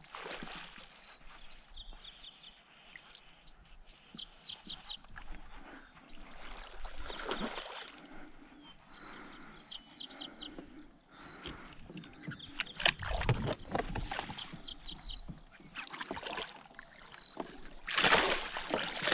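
A hooked fish splashing at the water's surface, with the loudest burst of splashing near the end as it thrashes beside the kayak at the net. Birds chirp in repeated short bursts throughout.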